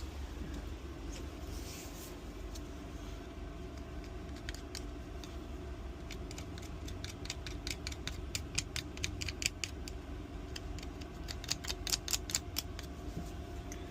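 Quick runs of small metallic clicks and scrapes from a metal tool being worked in a corroded motorcycle gas cap lock. They start a few seconds in and grow denser toward the end, over a steady low hum.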